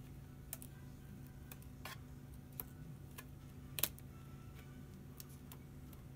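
Scattered small clicks and taps from hands and tweezers working a laptop's LCD panel and its adhesive pull strip, with one sharper click about four seconds in, over a steady low hum.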